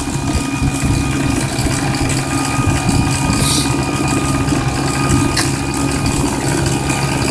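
Homemade backyard furnace running while melting aluminum cans: a steady mechanical hum over a constant rushing noise.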